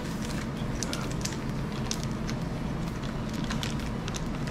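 Steady low rumble of a gas burner heating a pan of oil, with scattered small crackling pops.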